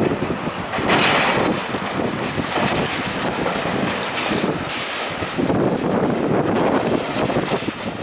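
Building demolition: rubble and masonry crashing and crumbling down in a continuous crackling clatter, loudest about a second in and again in the second half, with wind buffeting the microphone.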